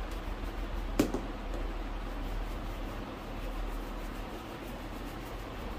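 A single sharp tap about a second in, over steady low background noise and hum, among the quiet sounds of hand work on a shoe.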